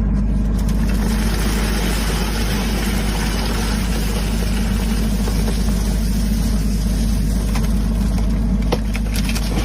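An engine running steadily at a constant speed, with a strong low hum, and a few sharp clicks or knocks near the end.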